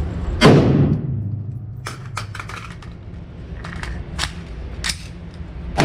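A rifle shot about half a second in, with a reverberating tail. Scattered sharp cracks and clicks follow, and a second shot comes right at the end.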